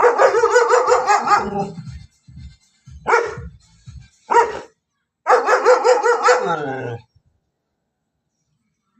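German shepherd barking loudly in runs: a string of barks in the first two seconds, two single barks around three and four and a half seconds in, then another string that drops in pitch as it ends, about seven seconds in.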